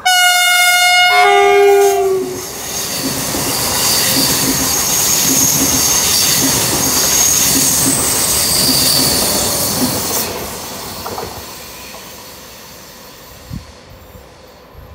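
Frecciarossa high-speed electric train sounding a two-note horn, a high note then a lower one. It then passes close by with a loud rush, a steady high whine and rhythmic wheel beats over the rail joints, fading away after about ten seconds.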